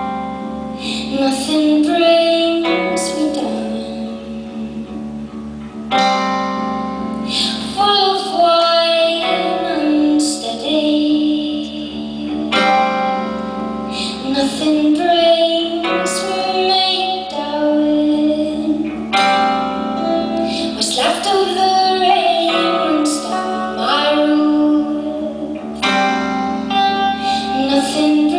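A woman singing lead vocals in sung phrases over a live band's accompaniment.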